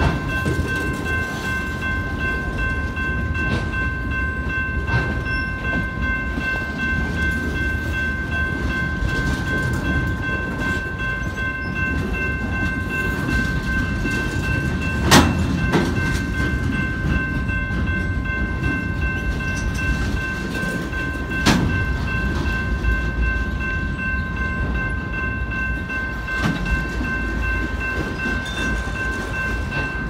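Freight train flatcars rolling past with a steady low rumble, joined by a constant high-pitched ringing tone. There are two sharp metallic clanks, about halfway through and again about two-thirds of the way through.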